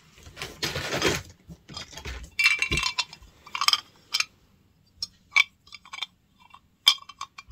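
Small jewellery pieces and trinkets being handled: a short rustle, then a scatter of sharp little clinks and taps as metal and glass pieces knock together.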